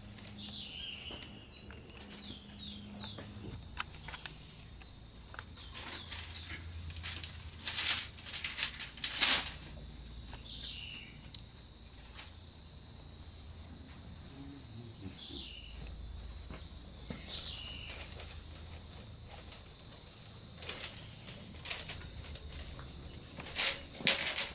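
Split bamboo strips rustling and clattering against each other as they are handled and bound into a fish-trap frame, with the sharpest, loudest clatters about eight and nine seconds in and again near the end. A steady high insect buzz and a few bird chirps run underneath.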